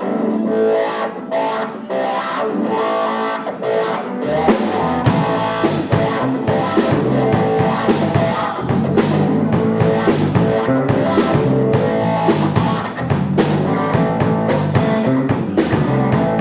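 Guitar-led instrumental music with no singing: lighter plucked playing at first, then a steady strummed rhythm with a bass line joining about four seconds in.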